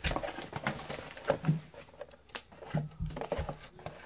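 Small cardboard box with a clear plastic window being handled: scattered light clicks and taps, with a few low thuds.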